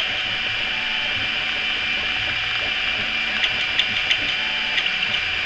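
RepRap Pro Ormerod 2 3D printer running a print in copper PLA: a steady whirring hiss with a thin high whine, and a few light ticks in the second half.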